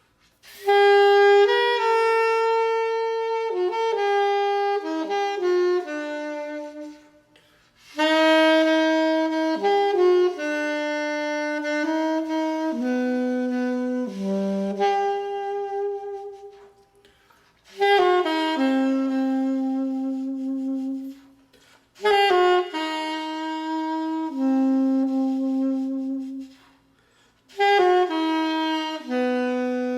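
Unaccompanied solo saxophone playing a slow, single-line melody in unhurried phrases, with short pauses for breath about every few seconds.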